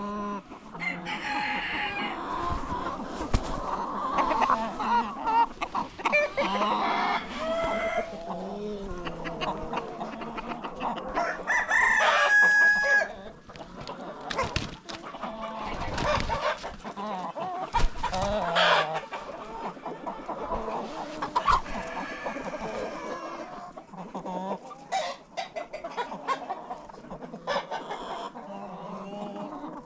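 Chickens clucking and calling throughout, with a rooster crowing and a few dull thumps in between.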